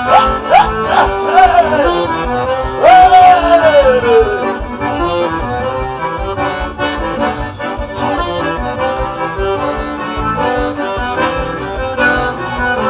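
Live forró band playing an instrumental introduction led by several accordions (sanfonas) over a steady beat, with a few sliding notes in the first few seconds.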